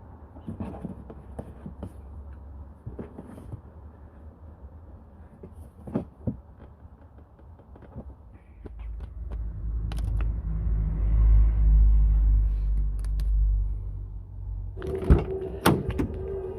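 Scattered clicks and knocks of parts and tools being handled, with a low rumble swelling in the middle. Near the end, a couple of sharp clicks are followed by a steady machine hum.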